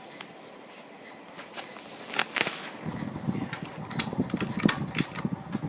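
Litex all-weather ceiling fan running with a faint steady whir. From about two seconds in, its pull chain is worked with a run of sharp clicks and a louder rattle.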